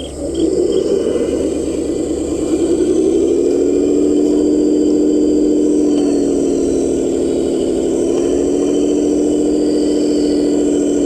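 A heavy construction vehicle's engine starting up and running, its pitch rising about two seconds in and then holding steady.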